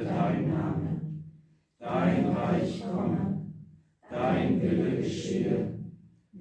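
Voices of a small congregation in three phrases of about two seconds each, with short silent pauses between.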